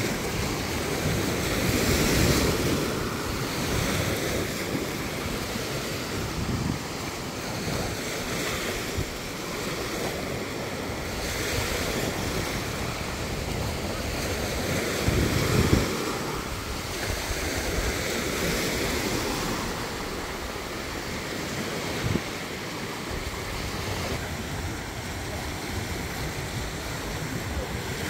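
Small waves breaking and washing up on a sandy beach, with wind buffeting the microphone; the surf swells louder about two seconds in and again around the middle.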